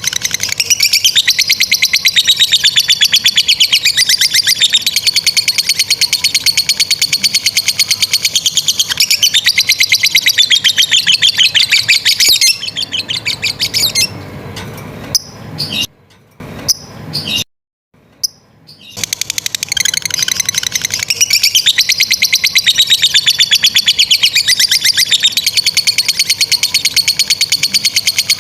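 Lovebird ngekek: a long, loud, high-pitched chattering trill of rapid pulses held for about twelve seconds. It breaks into short bursts with brief dropouts near the middle, then resumes and runs on.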